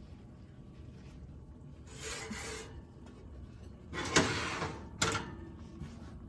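Kitchen handling noises as the oven is opened to check a baking dish: a scraping slide about two seconds in, a louder scrape with a sharp start about four seconds in, and a short knock a second later, over a low steady hum.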